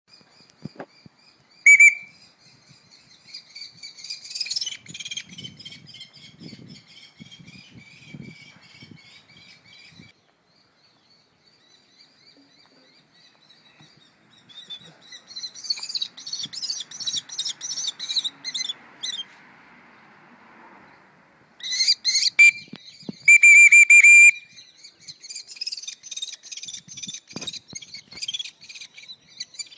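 Common kestrels calling in rapid series of short, high, repeated notes. A loud, steady, shrill whistle sounds briefly about two seconds in and again in several blasts about three quarters of the way through.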